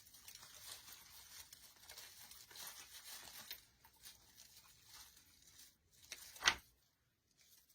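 Faint rustling and crinkling of artificial pine branches and a floral pick being handled and worked into a swag, with a single sharp click about six and a half seconds in.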